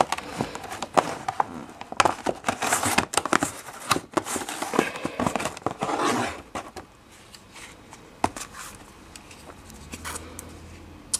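Clear plastic packaging tray crinkling and clicking as a squeeze tube of clay mask is pulled out of it. The handling noise dies down about seven seconds in, leaving only an occasional click.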